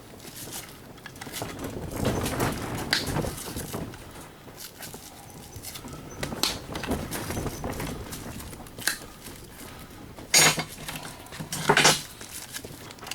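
Metal parts of a stripped-down can opener being handled and worked loose, with scattered clicks and rattles and two louder clatters near the end.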